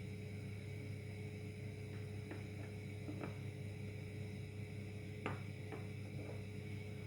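A steady low hum with a few faint, light clicks: a pair near the middle and a slightly louder pair a little past five seconds in.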